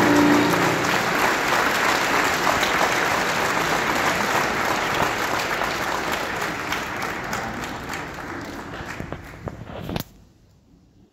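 Audience applauding, the clapping slowly fading and then cutting off suddenly about ten seconds in.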